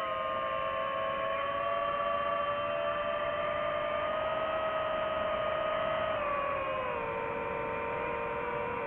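FPV quadcopter's brushless motors whining at a nearly steady pitch, easing down a little in two small steps near the end.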